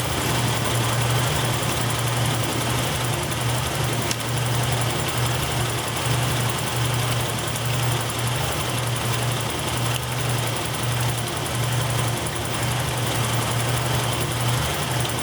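Buick 3300 V6 engine idling steadily, a continuous low hum. It is running on shorted fuel injectors, the cause of its rough idle and misfire.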